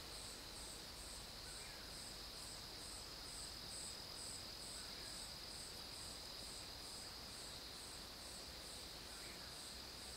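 Faint night insects: one keeps up a steady high trill, while another chirps in an even pulse about two to three times a second.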